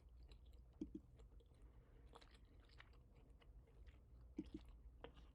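Near silence: room tone with a few faint clicks and two brief soft blips.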